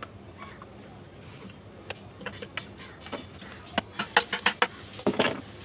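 A run of sharp clicks and knocks, several in quick succession about four seconds in and a short rattle near the end, over a faint steady hum.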